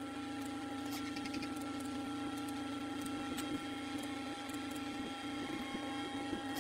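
Steady low machine hum, with a few faint clicks about a second in and again past the middle.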